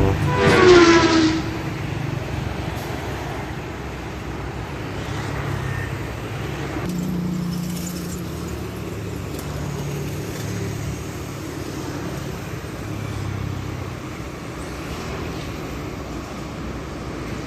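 A motor vehicle's engine running steadily with road noise, its pitch drifting a little. In the first second a short pitched sound glides downward, the loudest moment.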